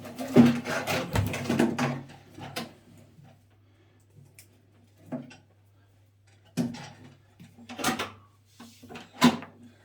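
A few separate knocks and clunks of objects being handled, about five of them a second or more apart, after a busier stretch in the first two seconds.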